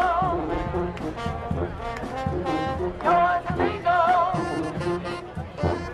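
A brass street marching band playing a tune. Horns hold notes with a wavering pitch over a moving low brass line, and drum hits keep the beat.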